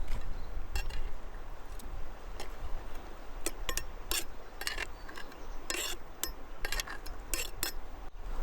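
A series of irregular light clicks and clinks, like kitchen utensils and dishes being handled during food preparation, over a low steady rumble.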